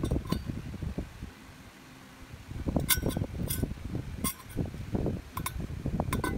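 Stainless-steel vacuum bottle and its steel tea-strainer insert being handled: about five light metallic clinks, each with a short ring, from about halfway through, over rustling handling noise.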